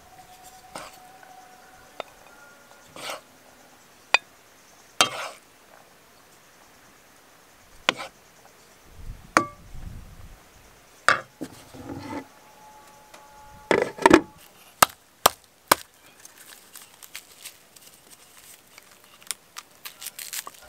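Wooden spatula scraping and knocking in a metal pan of bulgur pilaf as it is scooped and served onto glass plates, with scattered sharp knocks and clinks, a quick cluster of them in the middle.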